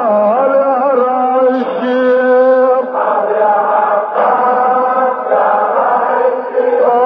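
A man chanting an Arabic Shia Muharram lament with a wavering, ornamented melody. About three seconds in, a group of male voices joins in together.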